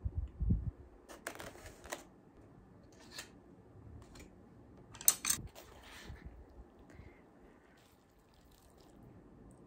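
Handling noise of a plastic lid being lifted off an instant cup-ramen container and put down: rustling and a few sharp plastic clicks, the loudest a little after five seconds in. A low thump comes at the very start.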